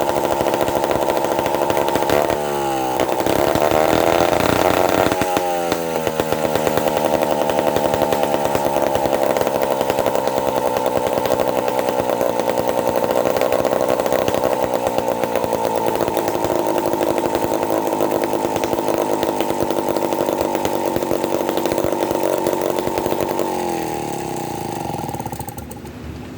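Lombard Woodlot Wizard two-stroke chainsaw running loud at high revs. The revs dip and climb back twice in the first several seconds, then hold steady. Near the end the revs fall away and the engine slows down.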